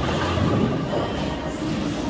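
Steady rumbling din of a bowling alley: balls rolling down the lanes and pinsetter machinery running, with background music.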